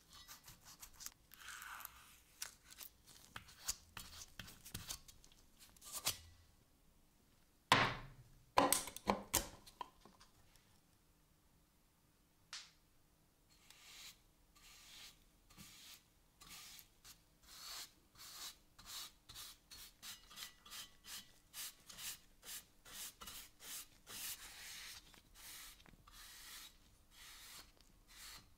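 Paintbrush bristles stroking paint onto a cast-iron pulley, a run of short swishes about two a second through the second half. Before that come scattered handling rubs and clicks, with a few louder knocks and rubs about a third of the way in.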